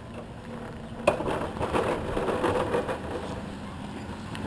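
Wheelchair jolting over broken, potholed pavement: a sharp knock about a second in, then a rattling clatter for a couple of seconds as it rolls over the rough surface, over a faint steady hum.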